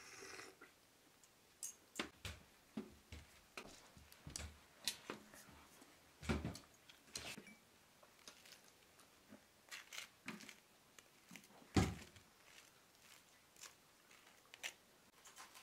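Cutlery and tableware clicking and knocking on a large metal serving tray, with a fork scraping a spread onto toasted bread. Scattered sharp clicks, with a few duller knocks, the loudest about six and twelve seconds in.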